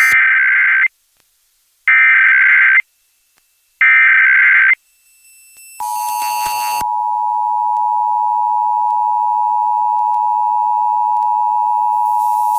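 Emergency Alert System test signal: three one-second bursts of SAME header data tones, about two seconds apart, then, about six seconds in, the steady two-tone EAS attention signal starts and holds.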